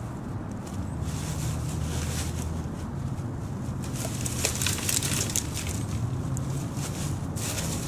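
Dry branches and brush rustling and crackling now and then, heaviest in the second half, over a steady low rumble.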